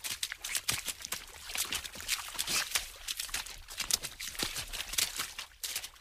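Water splashing fast: a quick, irregular run of sharp splashes, several a second.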